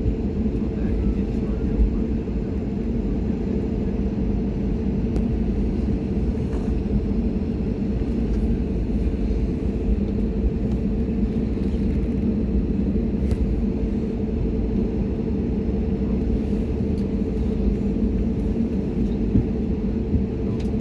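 Cabin noise inside an Airbus A320 taxiing after landing: a steady low rumble of the engines and airframe with a constant hum.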